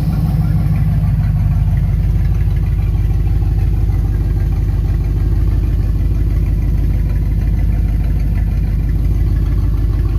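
1988 Ford F-150's 5.0 (302) V8 idling steadily, heard at its exhaust, which has no muffler: just a small round resonator after the catalytic converter, turning out to the side.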